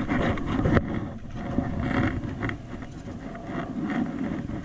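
Wind buffeting the microphone in uneven gusts, with a single handling knock about a second in.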